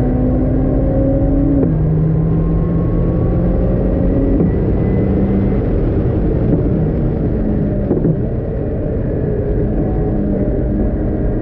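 Caterham R500's four-cylinder engine under hard acceleration, heard from inside the open cockpit. The pitch drops sharply at upshifts about two seconds in and again around four and a half seconds. Around eight seconds the driver lifts off and the car brakes, and a pitch step near the end marks a downshift.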